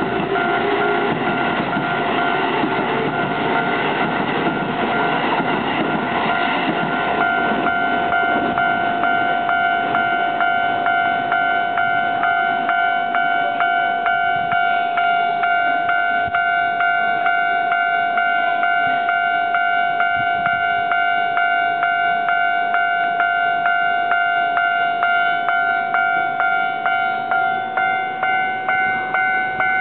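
Japanese level crossing warning bell ringing in a steady, rapid repeating ding, about two strokes a second. Over the first seven seconds or so a Keio electric train rumbles through the crossing, then its noise fades and the bell continues on its own.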